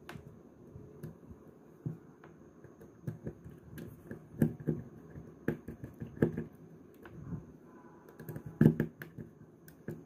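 Irregular small clicks, taps and light knocks of hands working on a small plastic MP3 Bluetooth module: fitting bent-wire hooks and turning a small screw in with a screwdriver. The loudest knocks come around the middle and again near the end.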